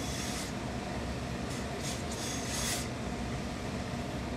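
Hose-fed steam iron pressing a suit jacket hem, giving off several short hisses of steam, the loudest about two and a half seconds in, over a steady low hum.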